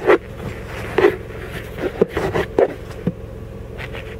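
Handling noise from a camera being adjusted by hand: a few short knocks and rubs, spaced irregularly about half a second to a second apart, over a steady low hum inside a car.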